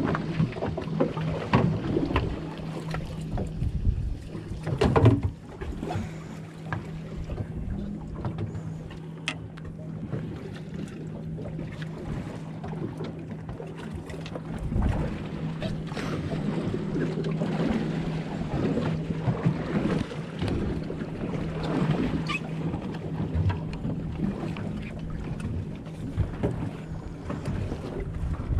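Steady low hum aboard an outboard fishing boat, with wind on the microphone and a wash of water noise. A few knocks from handling the rod and reel break through, the loudest about five seconds in.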